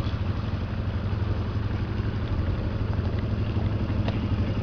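ATV engine running steadily without revving, while the quad sits stuck in a mud pit.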